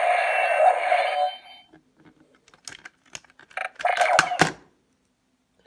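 Electronic sound effect from a Power Rangers T-Rex Super Charge Morpher toy, played through its small speaker as the Dino Spike Charger engages. A loud, ringing, buzzy burst fades out about a second and a half in. Plastic clicks follow, then a shorter second burst with sharp clicks about four seconds in.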